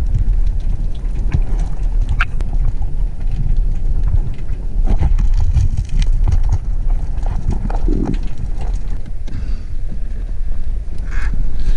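Muffled underwater rumble of moving water, with irregular knocks and clicks as the diver's camera bumps and scrapes among rocks while reaching for crayfish.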